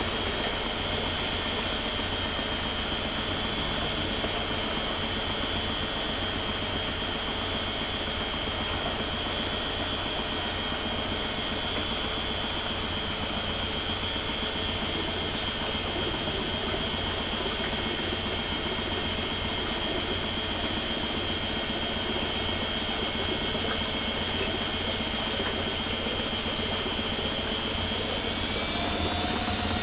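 Privileg 370 S washing machine spinning at a steady speed, its motor giving a constant high whine over a hum. Near the end the pitch starts to rise as the drum speeds up.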